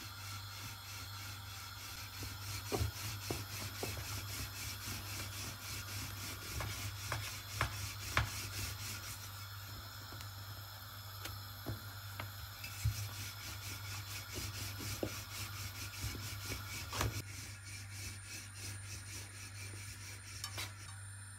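Wooden rolling pin rolling paratha dough out on a countertop: soft rubbing passes with scattered light knocks as the pin and dough are moved, over a steady low hum.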